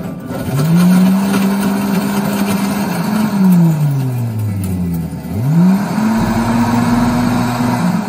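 1200 W Bravomix professional blender crushing ice. The motor spins up to a steady whine and winds down about three seconds in. About a second later it spins up again, with the crushed ice churning noisily in the jar throughout.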